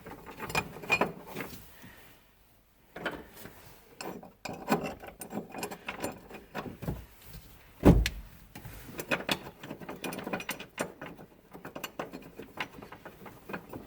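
Metal clicks and clanks as a car battery's hold-down bracket and its nuts are handled and fitted. There is one heavy knock about eight seconds in, then a run of quick light clicks.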